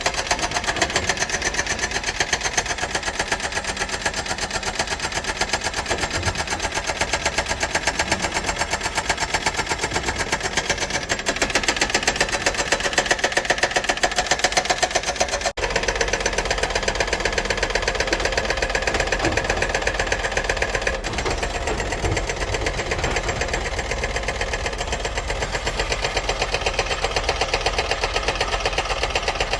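Doosan 255LCV excavator's diesel engine running steadily with a fast, even pulsing, with a momentary break about halfway through.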